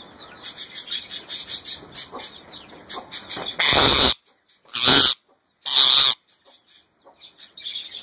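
Ring-necked parakeet chattering in quick high chirps, then giving three loud harsh screeches about a second apart, followed by softer chirps.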